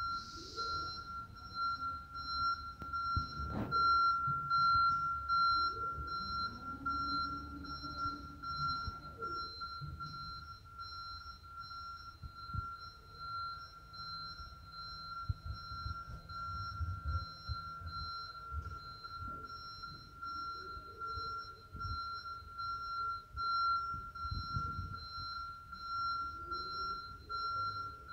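2006 JLG E450AJ electric articulating boom lift in operation: a steady high-pitched warning tone, with quicker pulsing tones above it, sounds the whole time. Beneath it the electric pump motor's whine rises and falls in pitch as the boom moves, and there is a sharp clunk about three and a half seconds in.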